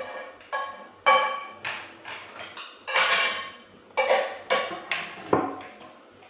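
Kitchenware being handled: about ten sharp clanks and knocks in quick succession, some ringing briefly like metal or crockery, dying away near the end.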